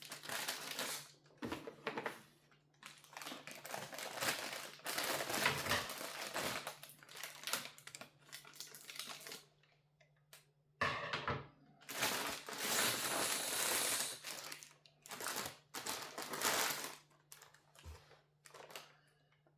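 Packaging crinkling and rustling in irregular bursts, with a few light knocks and clicks, as kit parts are unwrapped and handled.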